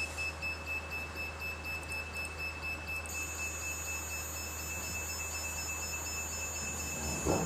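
Small CNC machine's stepper motors and drivers giving a steady high-pitched electronic whine over a low hum, with a second, higher tone joining about three seconds in. A brief knock near the end.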